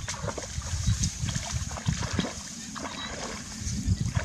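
Water splashing and sloshing as a person wades step by step into knee-deep water among grass, in uneven bursts.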